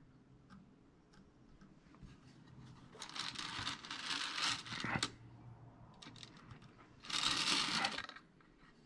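Hands handling a wooden form and wax on a workbench: rustling, scraping noise, about two seconds of it in the middle and a denser second near the end.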